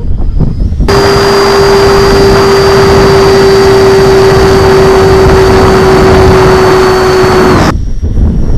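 A 70 mm 12-blade electric ducted fan with a 2600KV brushless motor running at steady high power, heard from a camera on board the flying model: a constant whine under heavy rushing wind noise. The loud part starts abruptly about a second in and stops abruptly near the end; around it the fan is heard only faintly, as a thin high whine.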